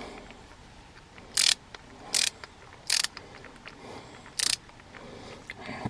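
Ratchet of a Milwaukee ratcheting multi-bit screwdriver clicking in four short bursts, as the handle is turned back and forth with the ratchet set for driving screws in.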